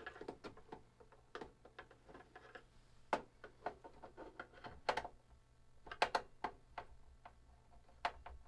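Irregular small clicks and light knocks of hard objects being handled on a workbench, with a few sharper taps about three, five, six and eight seconds in.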